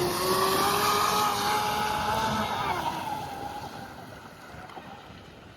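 Pro Boat Blackjack 26 RC boat's 4300 kV brushless motor and prop running up to speed: a whine that rises slightly at the start, holds, then fades away over the last couple of seconds as the boat pulls away, with wind noise on the microphone.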